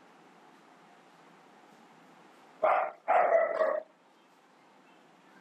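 A dog barking twice over faint steady hiss: a short bark a little past halfway, then a longer one right after it.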